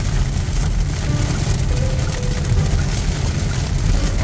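Inside a car's cabin driving on a rain-soaked highway in heavy rain: a steady low rumble of engine and tyres on the wet road, under an even hiss of rain and tyre spray.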